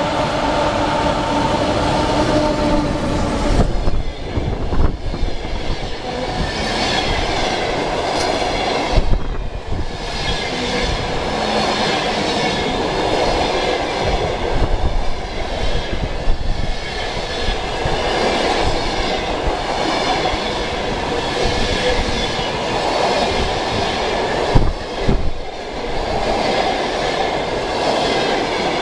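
ChS2T six-axle DC electric locomotive hauling a passenger train past at speed: a steady droning tone as the locomotive comes through in the first few seconds, then the coaches rolling past, wheels clattering over the rail joints with occasional knocks.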